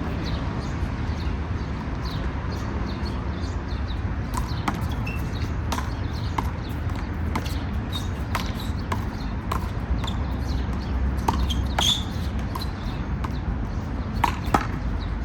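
One-wall handball rally: the small rubber ball smacking sharply and irregularly off players' hands, the wall and the pavement, mostly from about four seconds in, over a steady low background rumble.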